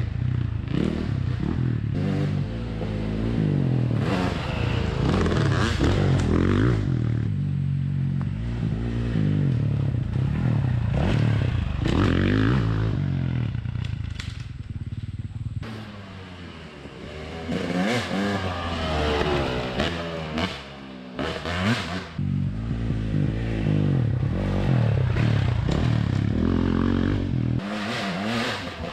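Dirt bike engine revving up and backing off again and again as it is ridden, its pitch rising and falling with the throttle. The engine sound fades for a few seconds around the middle, then picks up again.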